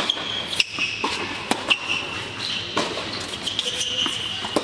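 Tennis rally on an indoor hard court: sharp racquet strikes and ball bounces about once a second, echoing in the hall, with high shoe squeaks on the court surface between them.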